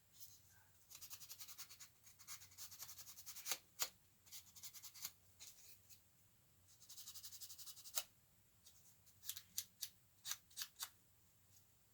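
Edge of a plastic model-kit part being cleaned up by hand: two runs of rapid, fine scraping strokes, the first about a second in and the second about seven seconds in, with sharp clicks from the parts being handled in between.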